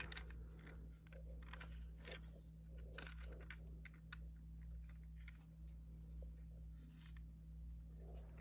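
Faint scattered clicks and taps of a plastic Transformers Studio Series 86 Ratchet figure in ambulance mode being handled and turned over, against a steady low hum.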